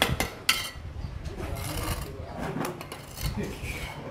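Steel bricklaying trowel tapping sharply on brick twice, then scraping through wet mortar.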